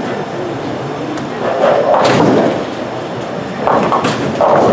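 Bowling alley noise: bowling balls rolling down the lanes and pins crashing, with louder pin crashes about two seconds in and again near the end.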